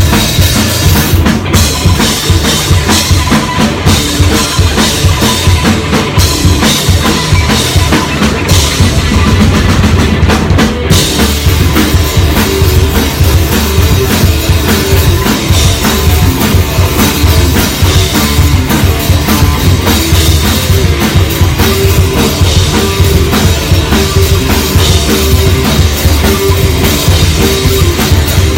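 Live rock band playing loud and without a break, the drum kit to the fore with bass drum and snare driving a steady beat.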